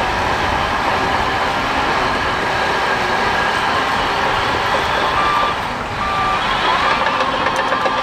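Bulldozer's diesel engine running steadily under work. About five seconds in, a reversing alarm starts beeping at an even pace, a bit over one beep a second.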